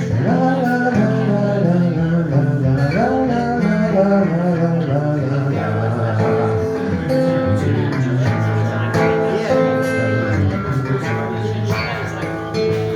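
Live music: guitar playing an instrumental passage of a song, with sustained pitched notes and some bending, wavering lines in the first few seconds.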